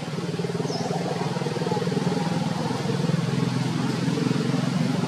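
A motor engine running steadily, growing louder over the first couple of seconds.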